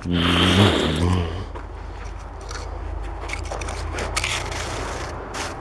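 Snow being scraped and pushed across a tabletop by a toy bulldozer's blade, a steady scraping crunch.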